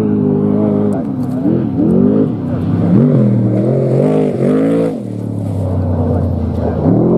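Desert trophy truck's race engine passing at speed. It runs at a steady high pitch, then drops and climbs several times over about four seconds as the throttle is lifted and reapplied, holds steady again, and starts to climb at the very end.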